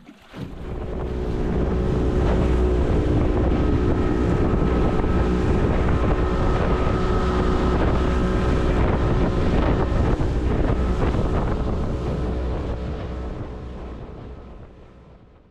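Yamaha two-stroke outboard motor running steadily as the boat travels, with wind buffeting the microphone. The motor swells in over the first couple of seconds and fades away near the end.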